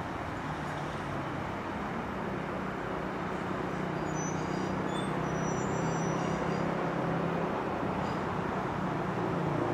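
Class 175 diesel multiple unit's underfloor diesel engines running as the train pulls away, a steady low hum that grows slightly louder in the second half. Brief faint high-pitched squeals come around the middle.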